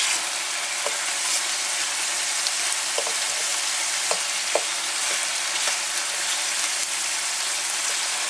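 Pieces of deer meat frying in hot oil in a large pan: a steady sizzle with a few small pops scattered through, the meat nearly done.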